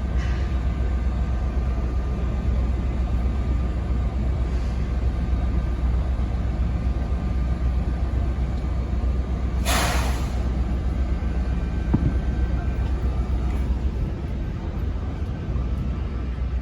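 Steady low rumble, with a short, sharp air-brake hiss about ten seconds in.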